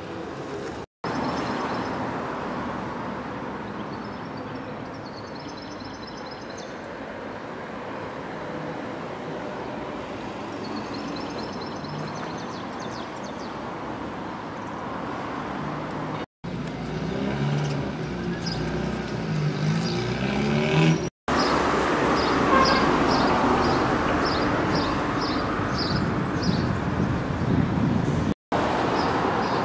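Town street ambience: steady traffic noise from cars, with a few short high chirps over it. The sound cuts out for an instant four times at the joins between short clips and is louder in the last part.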